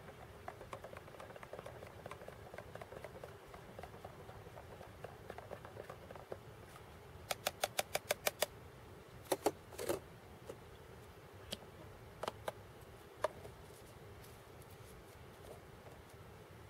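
Metal spork scraping and clinking in a metal camp cup. Light scrapes give way to a quick run of about eight sharp clicks, then two louder ringing clinks, then a few single taps.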